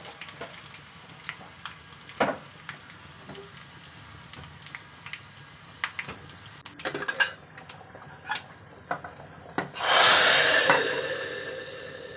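Metal clinks of a spoon against a kadai while a garlic and curry-leaf tempering fries in hot oil, then a sudden loud sizzle about ten seconds in that fades over two seconds as the hot tempering is poured onto the mashed bharta.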